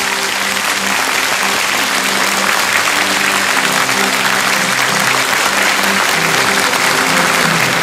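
A large crowd clapping steadily, with background music underneath.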